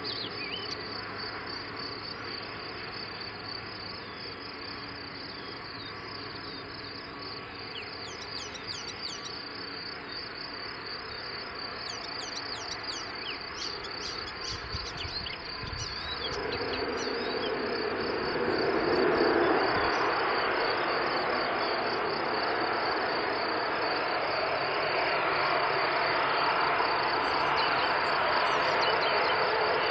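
Insects chirping steadily in the grass, with a few short high chirps near the middle. From about halfway through, the ATR 72's turboprop engines and propellers come up and grow steadily louder as the plane rolls out along the runway, becoming the loudest sound.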